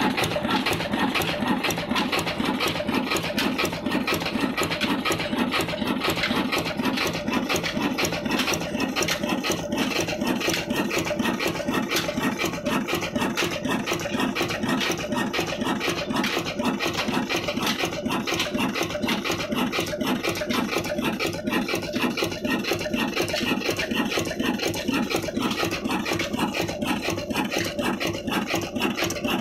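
Old heavy Ruston Hornsby–type 'black' diesel engine running steadily, a fast, even mechanical clatter.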